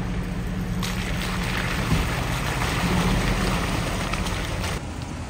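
Toyota 4x4 driving slowly on a dirt trail. Its engine runs with a steady low drone, with a few light knocks, and eases off shortly before the end.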